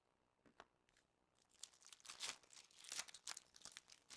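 Faint crinkling and tearing of a trading card pack wrapper as the pack is ripped open, with quick rustles from about a second and a half in.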